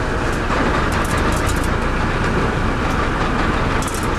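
Steady engine rumble and rushing water noise aboard a sport-fishing boat at sea, with faint crackles now and then.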